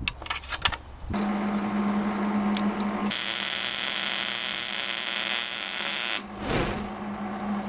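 A few clicks of steel parts, then a steady electric hum from the welder starting about a second in. Partway through, the welding arc crackles and hisses loudly for about three seconds and stops abruptly, while the hum carries on.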